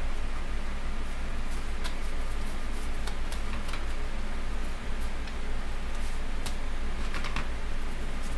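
Egg rolls deep-frying in hot oil: a steady sizzle with scattered light crackles and ticks, over a low steady hum.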